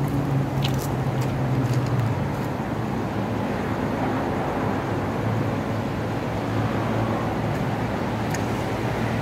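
Road traffic passing close by: a car, then motorbikes, with a steady low engine hum that swells in the first two seconds and again about four seconds in.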